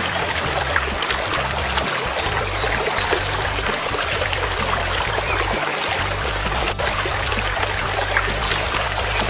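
A steady rush of running water, like a stream or a pour, with low music underneath.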